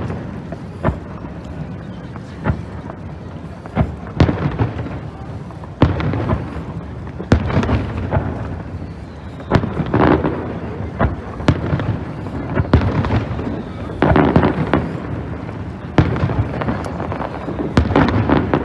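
Aerial fireworks shells bursting overhead, more than a dozen sharp booms at irregular intervals, each trailing off in a rumbling echo.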